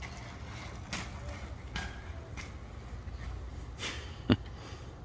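Steady low outdoor rumble, with a few faint soft scuffs and one short sharp click about four seconds in.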